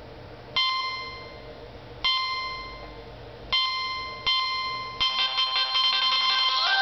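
Nokia 3220 mobile phone playing one of its built-in ringtones through its loudspeaker. Four separate bell-like chime notes each ring out and fade, then a quicker run of notes starts about five seconds in.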